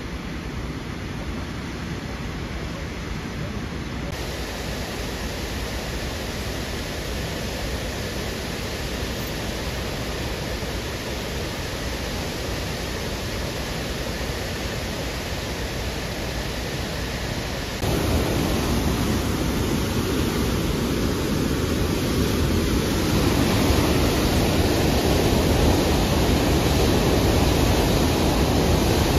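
Rushing whitewater of a high river pouring through a dam's spillway gates and churning in the rapids below, a steady loud rush. It steps up louder a little past halfway and again toward the end.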